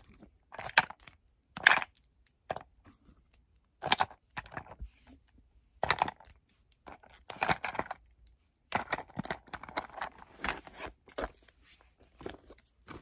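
Small pouches and their metal hardware being handled: scattered clicks, taps and light jingling in short bursts, with brief silences between.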